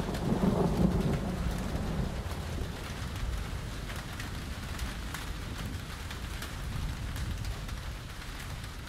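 Steady patter like rain, with many small ticks. A low rumble in the first two seconds fades away.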